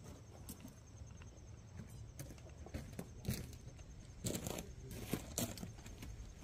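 Faint handling noise of pump wire leads and small plastic splice connectors being worked by hand over gravel: scattered short clicks and light crunches, most of them between about three and five and a half seconds in.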